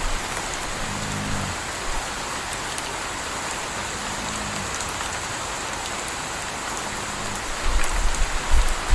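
Steady rain falling, with a puppy snoring softly about every three seconds. A louder low rumbling comes near the end.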